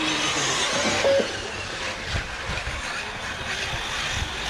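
Radio-controlled buggies running on the track: a steady, noisy whir, with a short high beep about a second in.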